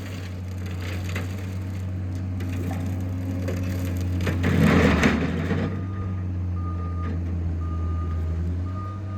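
John Deere skid steer's diesel engine running steadily, with its brush hog attachment crunching and splintering through brush and small trees, loudest about halfway through. From just past the middle, the machine's backup alarm beeps about once a second as it reverses.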